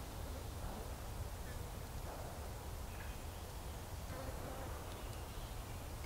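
Faint outdoor ambience: a steady low rumble with a few faint, short chirps scattered through it.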